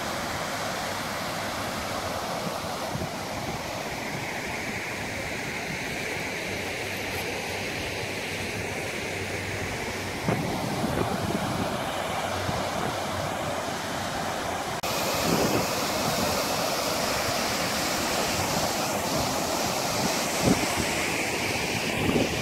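Water cascading over a stepped concrete spillway, a steady rushing wash that gets brighter about two-thirds of the way in. A few short low bumps break through it.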